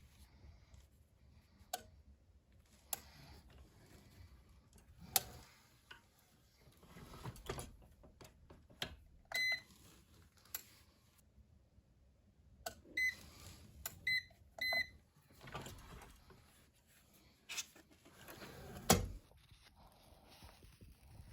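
Short electronic beeps from an appliance's control panel as it is set: one beep about nine seconds in, then three more in quick succession a few seconds later. Scattered clicks and knocks of handling equipment, with a loud thump near the end.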